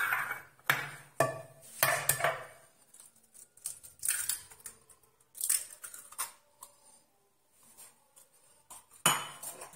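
A series of clinks and knocks against a glazed earthenware dish as hands work the flour in it and an egg is cracked into the flour.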